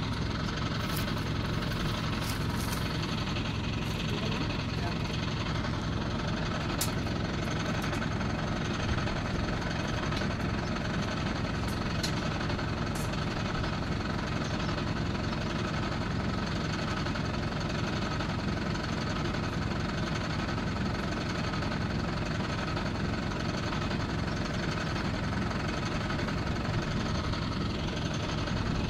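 A mobile crane's engine running steadily under load, holding a suspended steel rebar cage. A few sharp clicks come in the first half.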